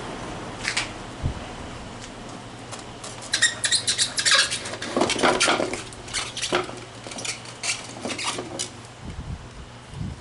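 A quick run of light metallic clinks and rattles, densest in the middle few seconds, from tools and metal parts being handled while a small rotary snowblower is taken apart.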